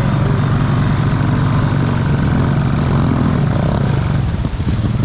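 ATV engine running steadily. About four seconds in, the sound drops and the engine note turns uneven and pulsing.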